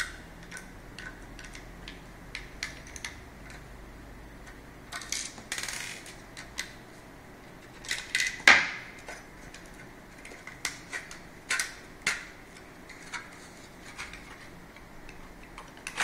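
Scattered small metallic clicks and clinks as the mounting screws are taken out of a Seagate SATA hard drive and its enclosure frame, with a louder knock of the drive or case against the counter about halfway through.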